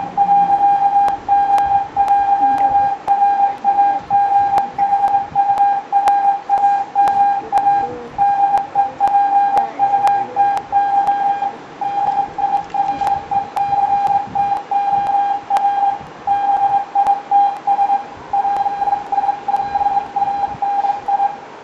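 Morse code sent by hand on a key, heard as a single high beep tone keyed on and off in quick dots and dashes. It runs almost without a break, with only a couple of brief pauses and faint clicks along the way, and stops just before the end.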